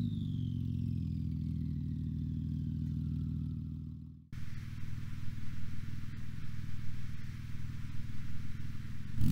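Porsche 911 GT2 RS twin-turbo flat-six idling through an Inconel street exhaust, with a high whine sinking in pitch and dying away over the first few seconds. The sound fades out about four seconds in, then the engine idles again with a pulsing burble.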